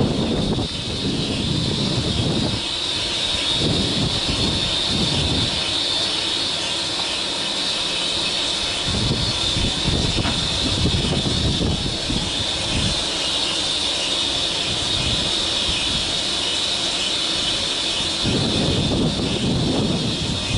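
Class 47 diesel locomotive's Sulzer twelve-cylinder engine running as it draws its coaches slowly in, with a steady high-pitched whine over it. Wind buffets the microphone in gusts.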